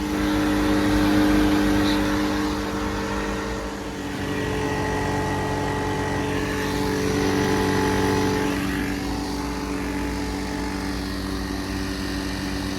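Refrigerant recovery machine running steadily as it pulls R-410A out of a failed heat pump into a recovery tank, a steady motor hum whose tones shift slightly about four seconds in.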